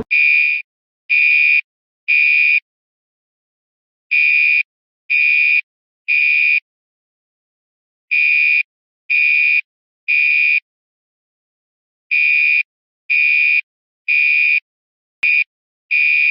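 Electronic fire alarm sounding the temporal-three evacuation signal: three even half-second beeps, a pause, then again, repeating every four seconds. Near the end the pattern breaks with one short, clipped beep.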